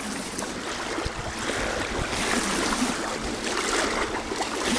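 Choppy lake water lapping in small waves, with wind rushing past, as a steady noise that slowly grows louder.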